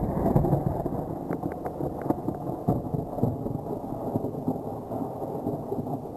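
Thunder rumbling, loudest at the start and slowly easing off, with a few faint ticks between about one and a half and two and a half seconds in.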